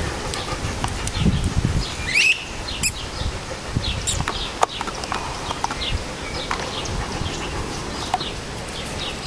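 A pit bull and a mixed-breed dog playing close up, with low rumbling bumps and a few sharp clicks. Short high chirps repeat in the background.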